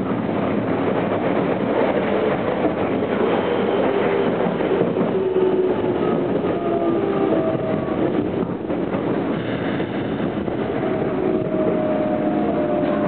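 Tokyo Metro 07 series electric train heard from inside the car: steady wheel-and-rail running noise with the VVVF inverter whine slowly falling in pitch as the train slows for the station. The inverter runs updated control software that makes it sound close to the 03 series and the Namboku Line 9000 series.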